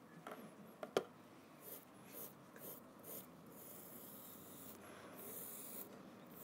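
Surform rasp scraping a clay form to clean up its surface and sharpen an edge: faint scratchy strokes, short at first and then longer and steadier, with a couple of light clicks about a second in.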